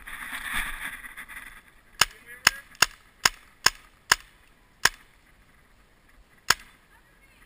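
Paintball marker firing close by: eight sharp pops, six in quick succession at about two or three a second, then two more spaced out, the last near the end.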